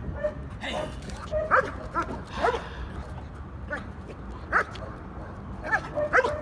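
Dog barking at a man agitating it in protection training: about eight short, sharp barks, irregularly spaced.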